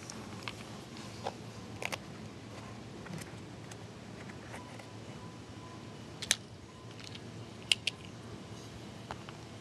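Sparse small clicks and taps as fingers handle a miniature model house, opening its tiny window shutter, over a low steady room hum. The sharpest taps come about six seconds in and as a quick pair nearly eight seconds in.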